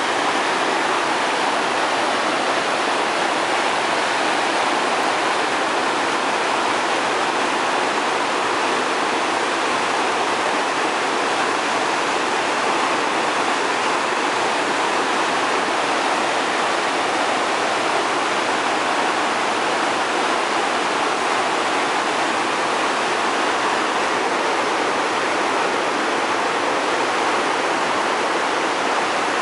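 River in flood, a steady rush of muddy floodwater pouring in rapids over a submerged road.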